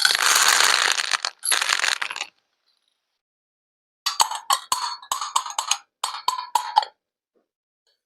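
A rushing, hissing splash in two goes, like water poured into a small tub, then after a pause a run of about a dozen light clinks and taps of small hard objects against each other.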